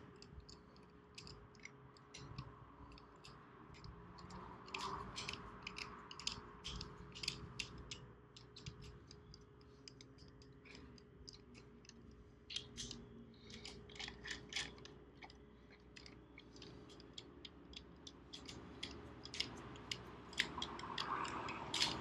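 Faint, irregular small metallic clicks and ticks from hand tools as bolts are run into the lower cover of a Sea-Doo Spark jet ski engine, some coming in quick runs of several clicks.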